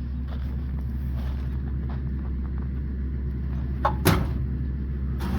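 Steady low drone of a vehicle running, heard from inside the cab, with a single sharp knock about four seconds in.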